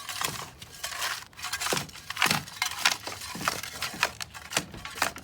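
A hand tool chopping and scraping into the dirt, about two crunching strokes a second, cutting back a one-inch strip of soil along the edge of the trampoline pit.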